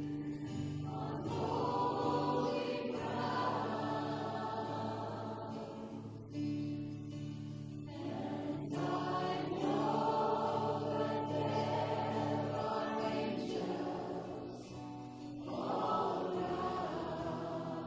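Congregation and worship band singing a slow worship song together, held chords under sustained sung phrases that swell and ease.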